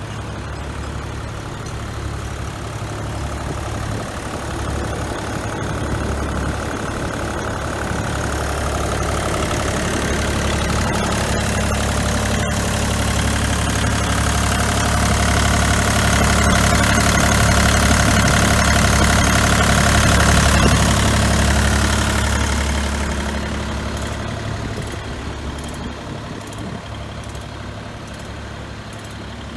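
Bobcat E35 compact excavator's diesel engine running steadily. It grows louder over the first twenty seconds, with a higher whine added in the loudest stretch, then settles back down near the end.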